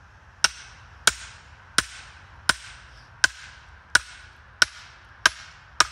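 A hammer striking the back of an axe head wedged in a round of crabapple firewood to drive it through: nine evenly spaced sharp metallic blows, about one and a half a second, each with a short ring.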